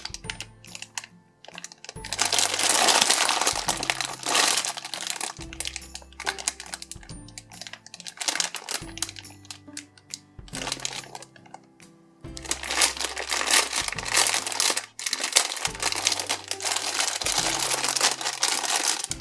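Thin clear plastic packaging crinkling as hands squeeze and handle a bagged squishy toy, in two long spells, the second starting about halfway through. Background music with a steady bass line plays underneath.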